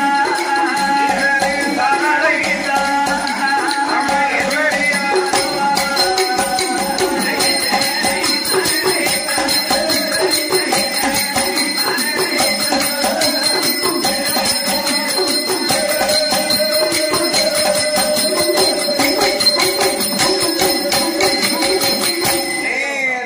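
Tamil villu pattu (bow-song) ensemble music: jingling bells and rapid percussion strokes under a wavering melody line. It stops just at the end.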